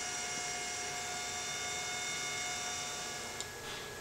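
Steady electrical hum with several thin, high, steady whining tones. It drops a little just after three seconds in, with a faint click.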